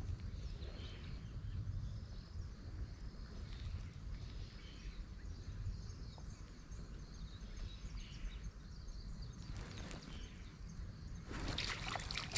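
Steady low outdoor rumble on a pond, then, about eleven seconds in, water sloshing and splashing as a big swimbait is reeled up to the surface close by.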